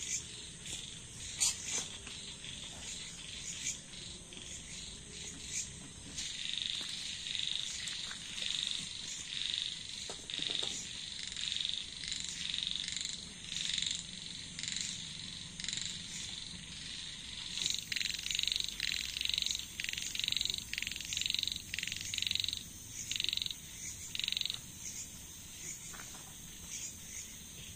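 A frog calling, a short high call repeated a little more than once a second, becoming louder and more uneven in the later part and stopping a few seconds before the end. Insects trill steadily behind it, with a few sharp crackles from the wood campfire.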